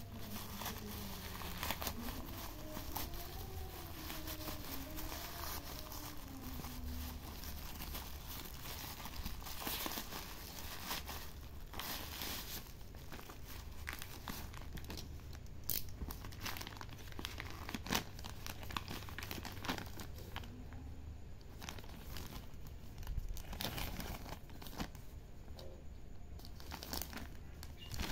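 Plastic packaging crinkling and tearing as hands rip open a tape-sealed black plastic mailer bag and handle a thin plastic bag. It is a continuous crackle with a few sharper rips.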